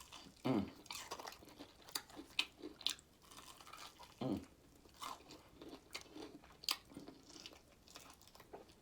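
Close-up eating sounds: repeated crunching bites and chewing of crispy fried food. Two short falling 'mm' hums from the eater come about half a second and four seconds in.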